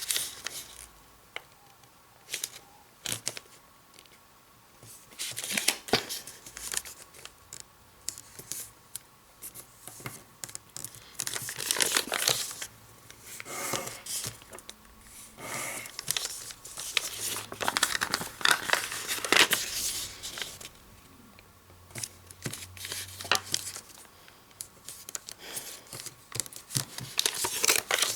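Sheet of origami paper being folded and creased by hand: irregular crinkles, rustles and sharp crease sounds in bursts with quiet pauses between.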